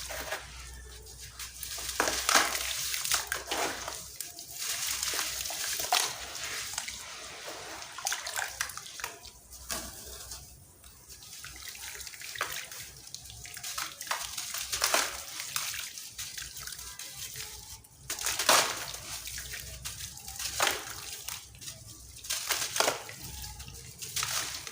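Chunks of dry sand cement being crumbled and crushed, a grainy crunching hiss of falling crumbs that swells and eases in irregular waves, with sharper crackling peaks every few seconds.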